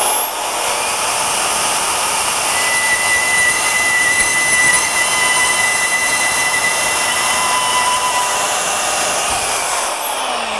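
Portable band saw cutting through a metal exhaust turndown pipe clamped in a vise: a steady hissing, whining cut, with the motor's whine still climbing in the first second. Near the end the cut finishes and the motor winds down with a falling whine.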